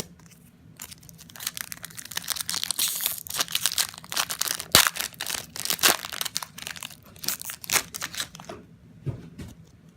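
A Topps baseball card pack's wrapper being torn open and crinkled, a run of dense rustling and crackling with one sharp crack about halfway through, quieter for the last second or so.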